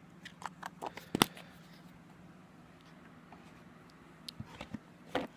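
Small clicks and taps from handling snus cans and packaging: a cluster in the first second or so, with one sharp click about a second in, then a few more near the end, over a faint steady hum.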